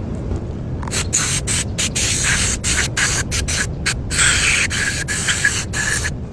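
Aerosol spray can hissing in a run of spurts, with many brief breaks between them, starting about a second in and stopping near the end.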